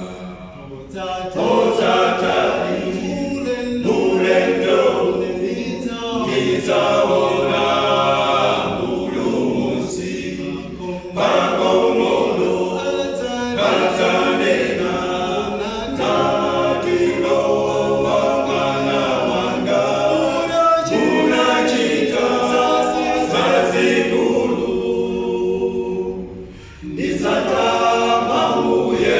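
Male a cappella gospel group singing in close harmony in Chichewa, unaccompanied, in phrases with short breaths between them and a brief dip near the end.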